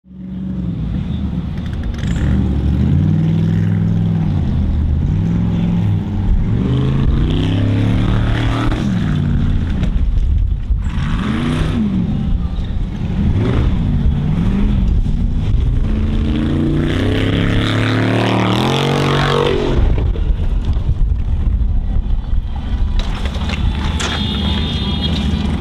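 Formula Offroad hill-climb buggy's engine revving hard, its pitch repeatedly rising and falling as the throttle is worked on a steep gravel climb. About 19 seconds in it winds up to its highest revs, then drops back.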